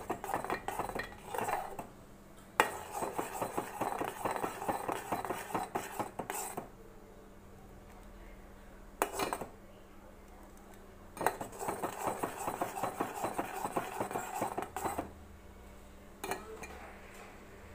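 Steel spoon stirring and scraping around an aluminium pot of thickening porridge, in runs of quick clinks and scrapes a few seconds long with short pauses between. The porridge is kept stirred so it cooks without lumps.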